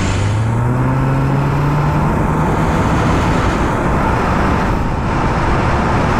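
Subaru Forester Wilderness's 2.5-litre flat-four under hard acceleration through its CVT. The engine note climbs in pitch over the first couple of seconds, then holds and fades into loud, steady tyre and wind noise from the road rushing past.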